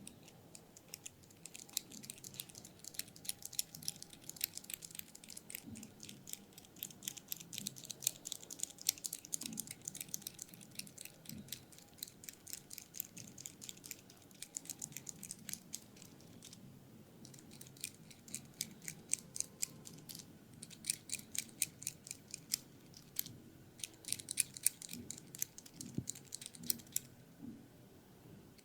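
Rapid, crisp clicking and crackling from hands working over the head and hair in an ASMR head massage, many clicks a second. It comes in runs broken by brief pauses and stops shortly before the end.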